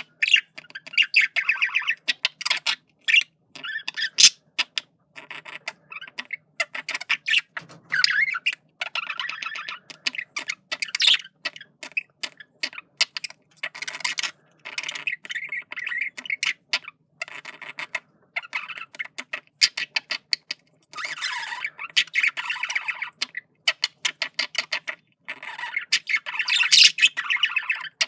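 Male budgerigar warbling and chattering in quick, broken runs of chirps and squawks, the courtship chatter a cock budgie makes when flirting with a hen. The runs are broken by short pauses and get louder twice in the second half.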